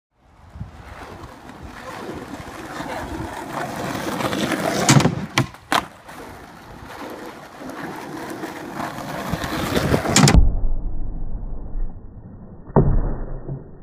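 Skateboard wheels rolling on rough asphalt, getting louder, with a few sharp clacks of the board about five seconds in and a louder one about ten seconds in. Afterwards it goes quieter and duller, with one knock of the board on a plywood box near the end.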